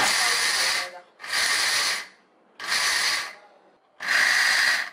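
Electric mixer grinder with a stainless steel jar grinding cashews in four short pulses of about a second each, with pauses between. The bursts are kept short so the nuts turn to powder without releasing their oil and caking into a paste.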